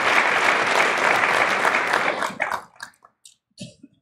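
Audience applauding. The clapping dies away about two and a half seconds in, leaving a few last scattered claps.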